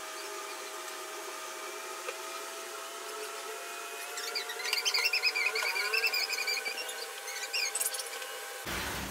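Steady hum of a small electric motor. A run of high, warbling chirps starts about four seconds in and lasts a few seconds, and the sound changes abruptly near the end.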